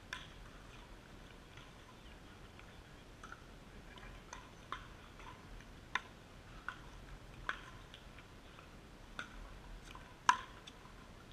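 Pickleball rally: sharp, irregularly spaced pocks of paddles striking the hollow plastic ball and the ball bouncing on the hard court. The loudest pock comes near the end, from a paddle hit close by.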